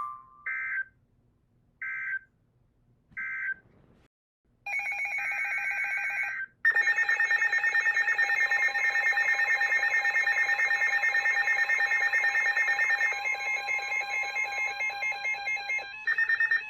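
Emergency Alert System signalling between two weather warnings. Three short data bursts about a second apart close the previous message, then a longer burst follows, then a loud, harsh electronic attention tone with a rapid pulsing rasp runs for about ten seconds ahead of the next warning.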